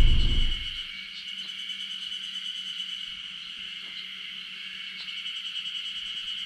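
Steady, noisy chorus of forest insects droning around a constant high pitch. A loud low rumble fades out within the first second.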